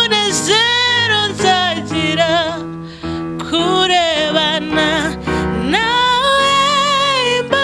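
A woman singing a Kinyarwanda gospel worship song, holding long notes with a wavering vibrato. There is a brief pause about three seconds in.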